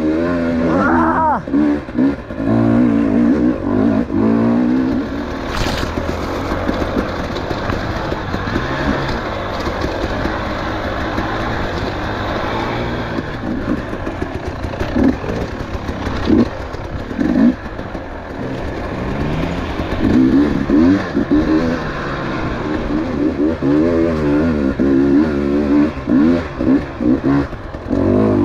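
Enduro dirt bike engine revving up and down as the throttle is opened and shut over and over while riding a rough off-road trail.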